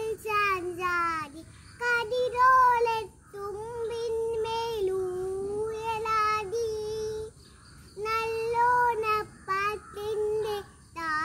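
A young girl singing a Malayalam Onam song (Onappattu) solo and unaccompanied, holding long notes with short pauses for breath between phrases.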